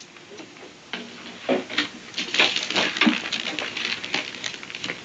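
Irregular light clinks, taps and scrapes of small objects being handled, starting about a second in.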